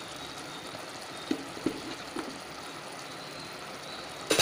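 Faint steady sizzle of potato and brinjal pieces cooking in a clay pot, with a few light knocks about a second and a half in and one sharper click near the end.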